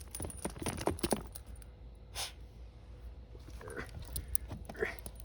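Cavalier King Charles spaniels scuffling over a toy: scattered clicks and rustles, a sharp breath-like puff about two seconds in, and a few brief whimpers in the second half.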